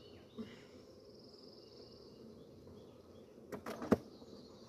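Honeybees buzzing steadily around an opened hive. Near the end come a few knocks and one loud clack from the wooden hive boxes being handled.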